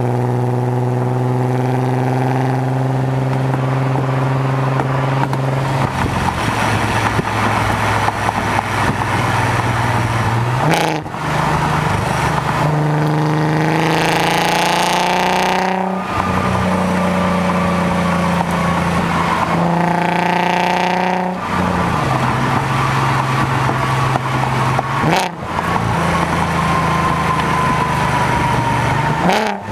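Volkswagen Passat's 3.6-litre VR6 engine and custom exhaust droning steadily as the car drives, heard from inside the cabin. The revs climb under acceleration about halfway through, and the drone breaks briefly several times with a jump in pitch.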